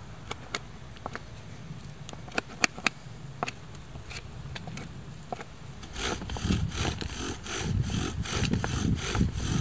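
A knife blade cutting into dry wood in single sharp clicks as a stick is whittled. About six seconds in, a rhythmic back-and-forth rubbing and scraping starts: a bow drill spindle turning against a poplar board.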